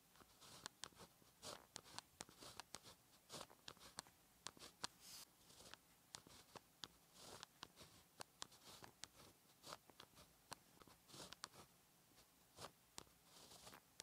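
Pen writing hanja characters on paper: quiet, short scratchy strokes with sharp ticks between them, in an uneven rhythm.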